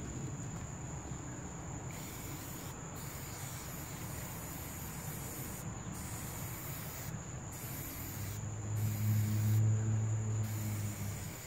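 Aerosol can of Plasti Dip spraying rubber coating onto sheet-metal tool cabinet doors, hissing in about five bursts with short pauses between. A steady high whine runs underneath, and a low hum grows louder near the end.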